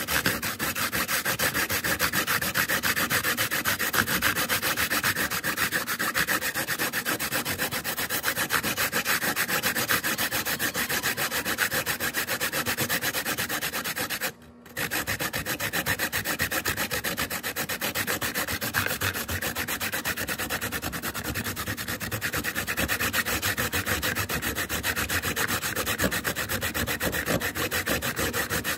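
A carrot being grated by hand on a flat metal grater with a catch container: rapid, steady rasping strokes that stop briefly about halfway through.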